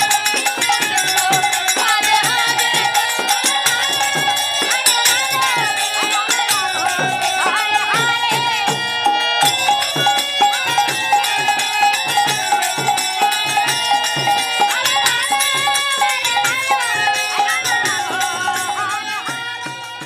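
Devotional Hindu music: a steady percussion beat over a held tone and a moving melody, fading out just before the end.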